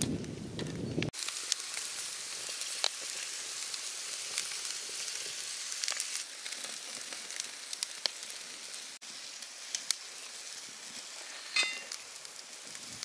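Whole marinated rabbits sizzling over hot charcoal in an earth pit: a steady high hiss with scattered sharp crackles and pops from the coals.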